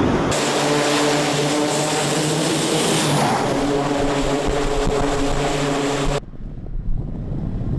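Twin turboprop engines of a C-2 Greyhound running with a steady propeller drone over a hiss. The drone cuts off suddenly about six seconds in, leaving a quieter low wind rumble.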